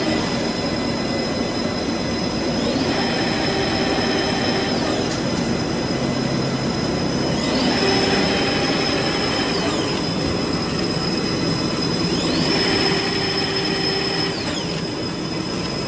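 Somtas Sheet Master paper sheeting machine running at line speed, a steady mechanical noise with a whine that rises, holds high for a couple of seconds and falls again, recurring about every five seconds.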